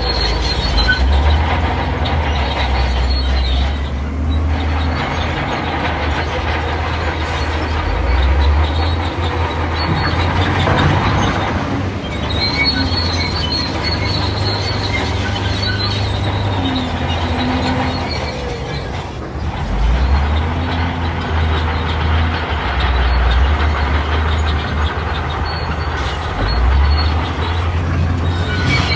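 Shantui D31P crawler bulldozer working: the diesel engine runs under load, its pitch rising and falling every few seconds, while the steel tracks clank and squeal.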